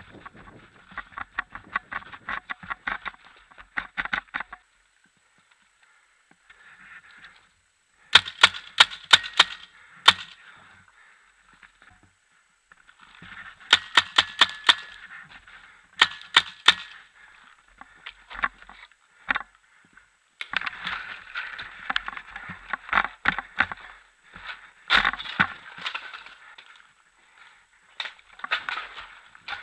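Paintball markers firing in rapid volleys of sharp pops, several shots a second, in bursts lasting a few seconds each. The loudest, close-by volleys come about eight seconds in and again about fourteen seconds in.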